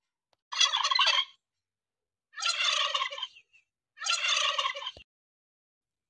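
Turkey gobbling: three rapid, rattling gobbles of about a second each, spaced about a second and a half apart.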